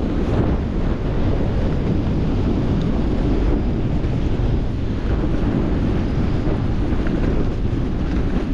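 Wind buffeting a GoPro action camera's microphone while skiing downhill, a steady low rumble with skis hissing over the snow underneath.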